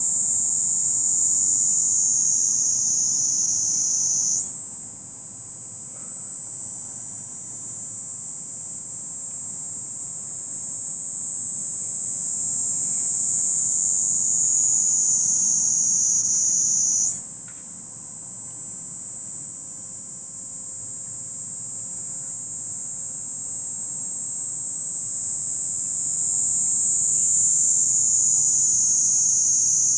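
Kaempfer cicada (niiniizemi, Platypleura kaempferi) singing: a continuous high, shrill buzz that slowly sinks in pitch and loudness. It snaps back up higher and louder twice, about four seconds in and again about seventeen seconds in.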